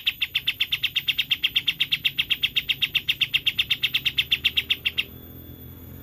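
Kapas tembak songbird giving a rapid, even machine-gun trill of about nine sharp notes a second, cutting off abruptly about five seconds in.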